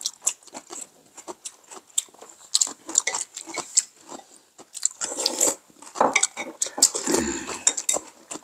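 Mealtime eating sounds: chopsticks and spoons clicking and scraping against bowls and plates in many short, irregular clicks, with a denser stretch of eating noise from about five to seven and a half seconds in.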